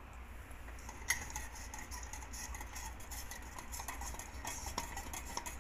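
Small clicks and scrapes of a hand handling the metal housing and trim of a recessed ceiling downlight, with one sharper click about a second in, over a low steady hum.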